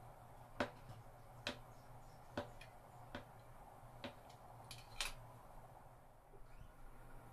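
Metal crinkle-cut dough cutter chopping down through a rolled dough log onto the tabletop: six sharp knocks, about one a second, stopping near the end.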